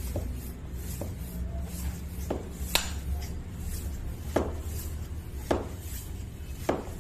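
A freshly repaired PCP air rifle hand pump being worked stroke after stroke to build pressure, with a sharp metallic click about once a second over a steady low hum.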